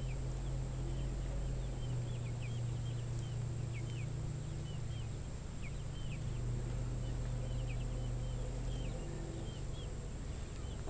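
Birds chirping over and over in short calls, over a steady high-pitched drone and a low steady hum.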